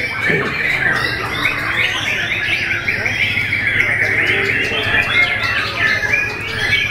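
Many caged white-rumped shamas (murai batu) singing at once, a dense overlapping tangle of whistles and chirps.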